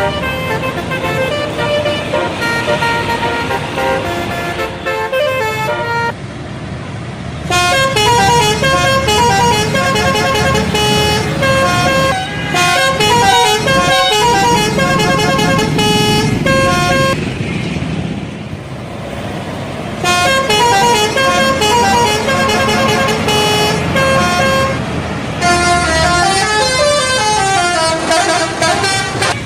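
Indonesian bus telolet horns: multi-trumpet air horns playing quick melodic runs of notes stepping up and down, in several long bursts with short gaps, over the rumble of bus engines.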